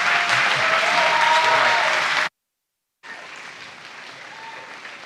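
Audience applauding with a few cheers. About two seconds in the sound cuts off abruptly to a moment of dead silence, then much quieter applause carries on.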